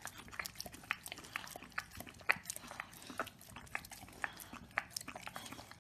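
Chow chow licking yogurt off a tile floor: a run of short, irregular tongue smacks and lapping clicks, roughly three or four a second.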